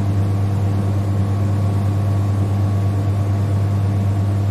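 Vapour compression air conditioning test rig running: a steady mains-frequency hum from its refrigeration compressor and blower, with an even low drone and overtones that do not change.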